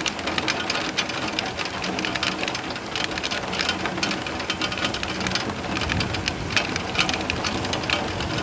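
Steady rain, with a dense patter of individual drops striking close by.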